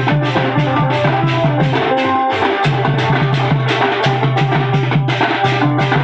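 Desia band party music: barrel drums and large hand cymbals beating a fast, even rhythm of about four strokes a second, over a melody of held notes and a deep bass line. The bass drops out briefly about two seconds in.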